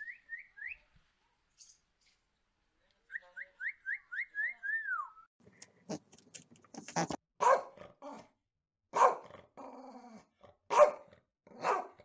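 Doberman barking, about five loud barks spread over the second half. Before it comes a quick run of rising whistled notes ending in one falling slur.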